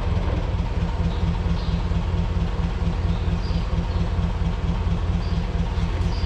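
An engine idling steadily close by, a low, even pulsing hum.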